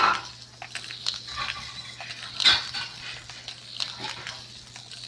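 A cat batting at a plastic ball-track toy: scattered clicks and rattling knocks, the sharpest right at the start and about two and a half seconds in.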